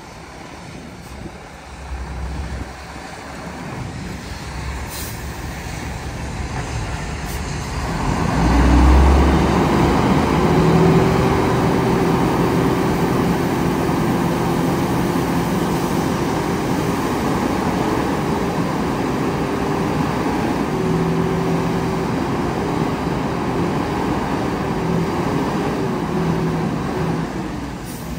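Shacman dump truck's diesel engine running as the truck reverses into the bay, then revved up about eight seconds in and held at a steady raised speed to drive the hydraulics while the tipper bed rises.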